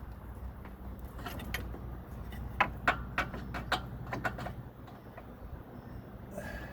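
Hand tools clicking and clinking on metal in a car's engine bay: a run of irregular sharp clicks over a few seconds, over a low steady background hum.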